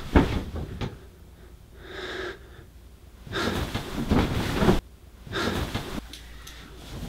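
A man breathing hard in several separate breaths, and a duvet rustling as it is thrown off about three and a half seconds in.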